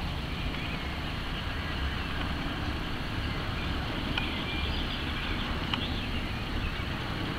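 Steady outdoor background noise with a low rumble, a few faint bird chirps and a couple of faint ticks.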